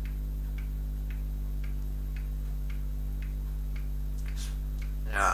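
Faint, regular ticking about twice a second over a steady low electrical hum. Just before the end a voice begins.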